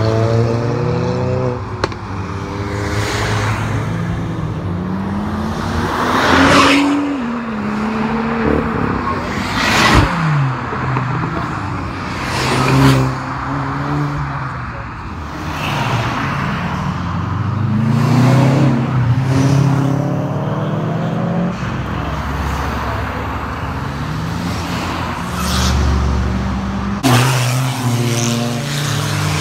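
Cars driving past one after another, engines accelerating with their notes rising and dropping as they change gear, and several loud pass-bys.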